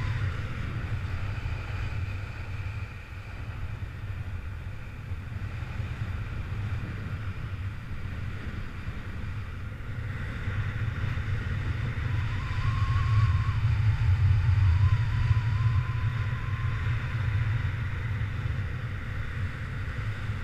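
Wind buffeting the microphone of a camera carried on a paraglider in flight: a steady low rumble that swells about twelve to fifteen seconds in, with a faint wavering high tone in the middle.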